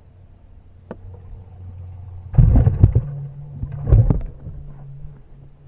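Loud knocks and bumps on a bass boat's deck and hull, in two clusters about two and a half and four seconds in, over a steady low hum that steps up in pitch about three seconds in.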